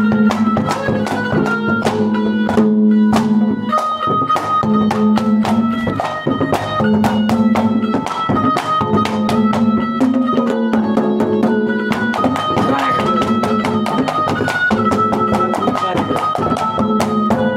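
Instrumental interlude of Haryanvi ragni folk music: a steady held drone and a sustained melody line over fast, dense drum strokes.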